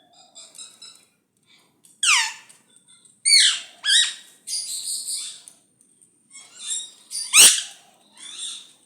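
Indian ringneck parakeet calling: a falling screech about two seconds in, then a run of shrill squawks and chatter, the loudest squawk near the end.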